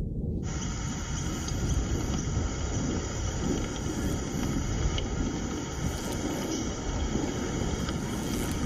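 Steady high-pitched insect buzzing that sets in suddenly about half a second in, over a constant low rumble.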